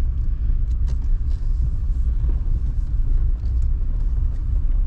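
Pickup truck engine running with a steady low rumble, the truck sitting with a stock trailer while waiting to back in.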